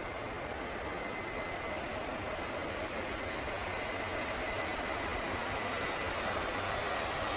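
Large jet aircraft's engines running at taxi power: a steady rush with a faint high whine, growing slowly louder.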